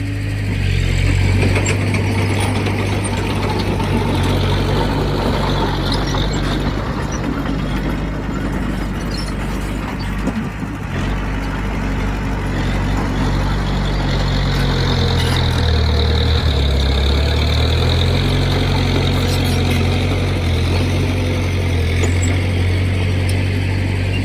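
Heavy diesel engine of earthmoving equipment running steadily, its engine speed shifting up and down, with a dip and recovery about two-thirds of the way through.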